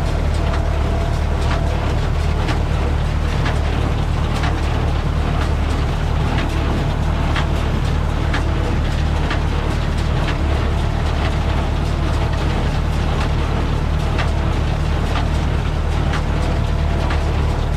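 Massey Ferguson 575 tractor's four-cylinder diesel running steadily at reduced revs, driving a New Holland 377 small square baler off the PTO at about 400 rpm. Sharp knocks from the baler mechanism recur about once a second over the steady engine drone.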